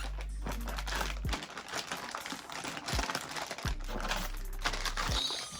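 Lip gloss tubes and their packaging being handled, making quick small plastic clicks and taps, over a background beat with a deep sustained bass note.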